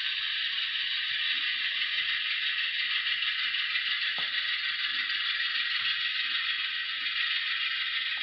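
Model railroad tank cars rolling slowly along the track, with faint irregular clicks of the wheels over rail joints and turnouts, one sharper click about four seconds in. A steady hiss runs underneath.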